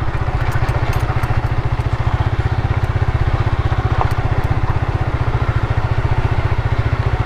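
Motorcycle engine running steadily at low speed, its exhaust pulsing rapidly and evenly.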